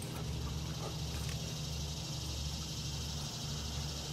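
Steady outdoor drone: a continuous high hiss like a chorus of insects over a low, even hum, with no clear separate events.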